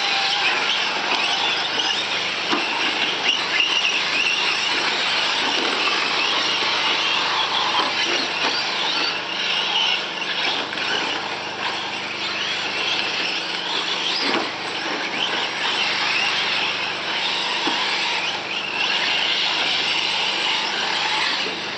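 Radio-controlled short-course trucks running laps on a dirt track, their motors giving a high whine that rises and falls with the throttle.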